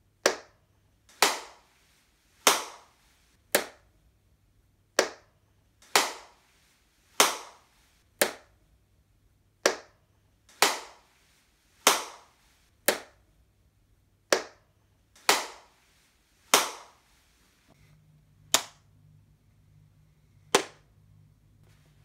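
About seventeen single hand claps, roughly one a second, recorded on a phone as a room clap test. The claps alternate in pairs between a dry clap that dies away short, in the acoustically treated studio, and a clap with a longer ringing reverberant tail, in the same room before treatment.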